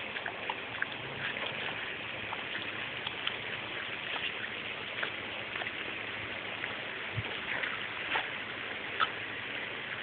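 Garden hose running on the ground, a steady hiss of water spraying onto wet mulch, with scattered small splashes and scratches as a dog digs in the wet patch.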